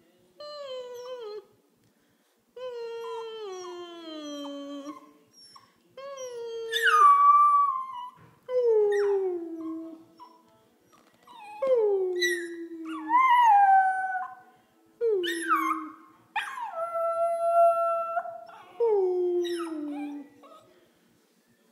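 An 11-week-old Pembroke Welsh Corgi puppy howling back at a person who howls and whines at her. A string of drawn-out howls, each sliding down in pitch, some lower and some higher, with short gaps between them.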